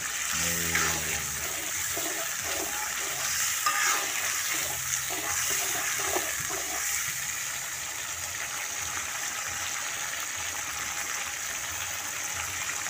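Canned sardines in chilli sauce frying and bubbling in a wok with a steady hiss. A metal spatula stirs and scrapes through the sauce during the first half.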